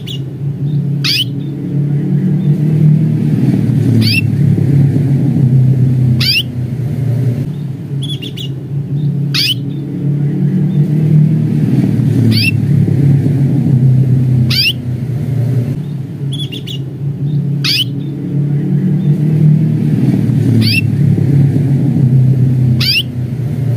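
Domestic canary giving short, high 'cuit' calls, each a quick downward-sweeping chirp, repeated about every two to three seconds, over a steady low rumble.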